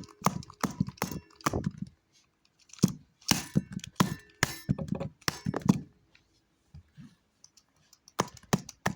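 Plastic remote control being whacked: repeated sharp knocks and cracks in irregular clusters, with a brief pause about two seconds in and a longer one from about six to eight seconds.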